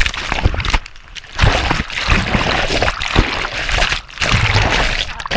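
Sea spray and churning water splashing over a jet ski's action camera as it rides through rough water. The noise comes in loud surges with brief dips between them.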